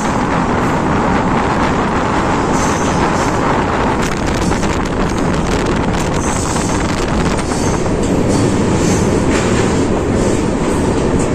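Rajdhani Express passenger train running on the track: a loud, steady rumble of wheels on rails, with many fast clicks over the rail joints.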